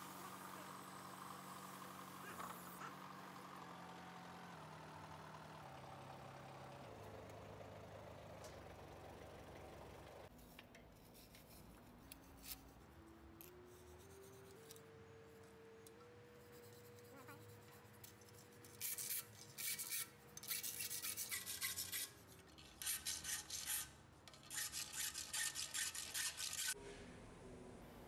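Repeated harsh rasping strokes of a hand tool in the second half, in quick groups. Before them there are faint tones that step down in pitch and then climb back up in steps.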